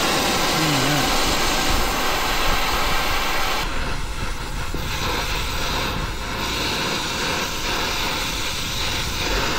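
Brazing torch burning with a steady rushing hiss as its flame heats the brazed copper refrigerant line joints on a mini-split compressor to sweat them loose.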